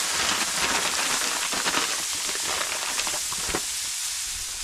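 Whole wild hog sizzling steadily on the grill grate, with many small crackles and pops and a sharper pop about three and a half seconds in.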